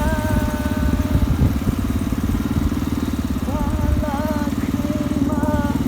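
Vehicle engine running steadily while travelling, with a person singing long held notes over it at the start and again from about three and a half seconds in.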